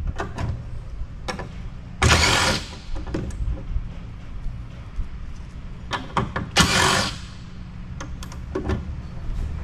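Cordless DeWalt impact driver run in two short bursts, about two seconds in and again near seven seconds, backing 7/16 nuts off copper bus-bar studs. Light clicks of the socket and metal parts sound between the bursts.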